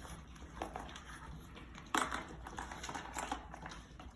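French bulldogs eating raw food from their bowls: irregular clicks and clacks of tongues and teeth against the bowls, the loudest about two seconds in.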